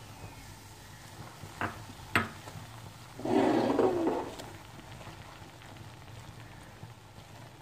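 Silicone spatula working gram flour into hot ghee in a metal frying pan, over a faint steady frying hiss, with two sharp knocks on the pan a little past one and two seconds in. About three seconds in comes the loudest sound, a voice-like cry about a second long.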